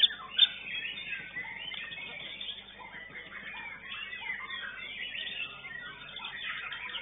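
Many caged songbirds singing at once, a dense overlapping mix of chirps, trills and whistles, with two sharp loud notes in the first half second.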